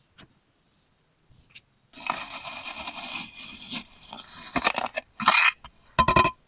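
Kinetic sand being cut with a blade: one long grainy, crunchy slice, then three short crunches as the blade cuts or the pieces crumble.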